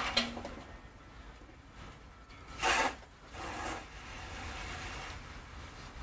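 Spray of water from car washing outside, heard as two short hissing bursts about two and a half and three and a half seconds in, then a steady fainter hiss; a single click right at the start.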